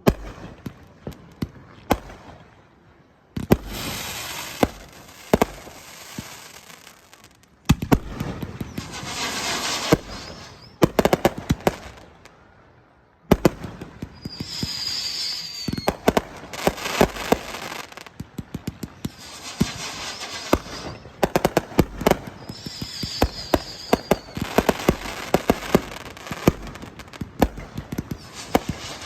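Fireworks going off in rapid volleys: sharp bangs and dense crackling in bursts, with short pauses between volleys and a brief high whistle twice.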